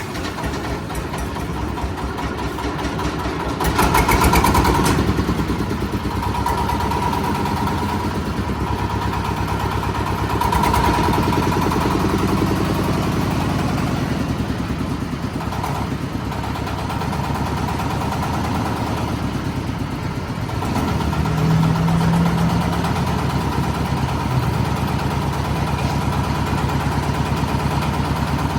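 An engine running steadily, surging louder about four seconds in and settling to a higher steady note about two-thirds of the way through.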